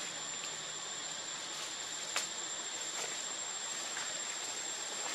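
Steady outdoor hiss with a thin, high, unbroken whine, broken by a few faint clicks, the sharpest about two seconds in.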